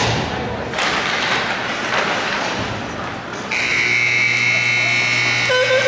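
Hockey rink ambience of crowd and play, then about three and a half seconds in a loud, steady electric arena horn sounds and holds.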